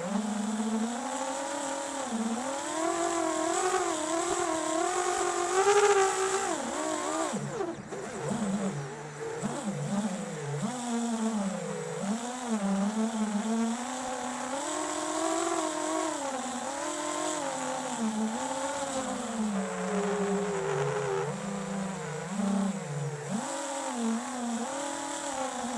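Flywoo FPV quadcopter's motors and propellers buzzing, the pitch constantly rising and falling with the throttle. The pitch climbs to its highest about six seconds in, then drops sharply and stays lower for a while before wavering up again.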